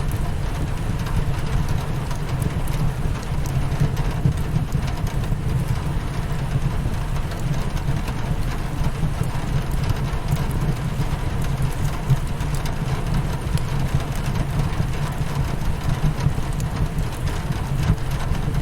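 Steady rain against a window over a deep, even rumble, with faint scattered crackles of a wood fire.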